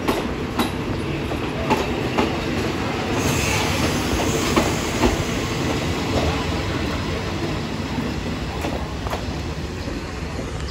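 Passenger coaches of a Thai ordinary train rolling past, wheels clicking and clattering over the rail joints, easing off slightly as the train draws away.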